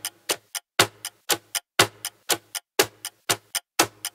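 Countdown timer sound effect of sharp clock-like ticks, about four a second, with a louder tick on each whole second.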